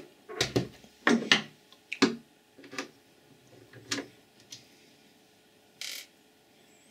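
Handling knocks and clicks from a small plastic NAS enclosure as it is turned over and set down on a wooden bench, with a short rustle about six seconds in.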